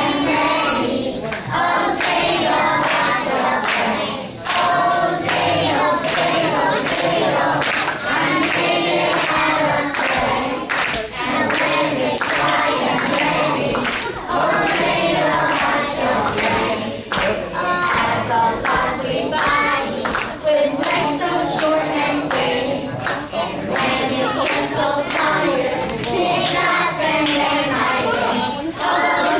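A group of young children singing a song together, with hand clapping along throughout.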